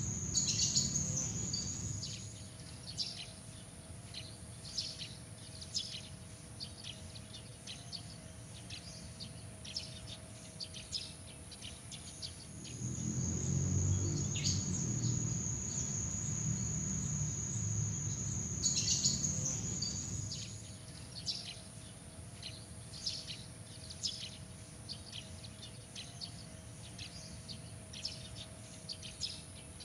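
Night insect chorus: steady high-pitched trills that switch between two pitches every few seconds, with many short chirps scattered throughout. A low rumble swells in briefly at the start and again for several seconds in the middle.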